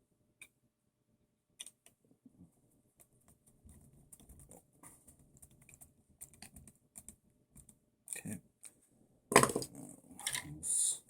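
Small plastic and metal parts of an RC buggy being handled and fitted by hand during reassembly: scattered light clicks and taps, with a louder cluster of knocks and rattles in the last two seconds.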